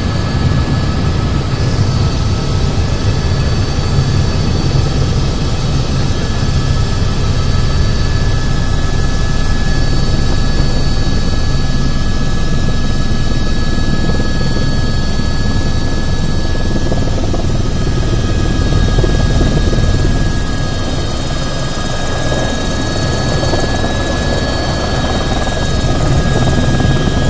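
Helicopter running steadily, with a heavy low rotor beat under a high, steady turbine whine; it eases a little about two-thirds of the way in, then builds back up.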